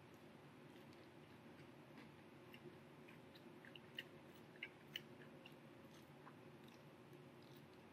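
Faint chewing of a fried chicken sandwich, mouth covered: a scatter of small wet mouth clicks, mostly between about two and five seconds in, over a low steady room hum.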